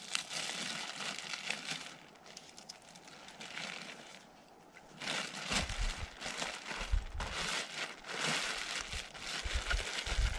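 Dry leaves and brush crunching and crinkling underfoot while walking through the woods. The rustle eases off for a few seconds and then comes back louder, with deep low thumps, from about five and a half seconds in.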